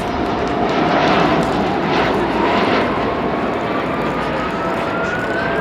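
Airbus A321's jet engines, IAE V2500s, spooling up for the takeoff roll: a steady jet roar with a whine rising in pitch through the second half.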